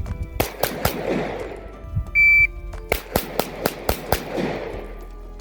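Pistol fired rapidly from low ready: about a half second in, three quick shots, then a shot-timer beep about two seconds in starts a second quick string of shots, each crack ringing out with an echo.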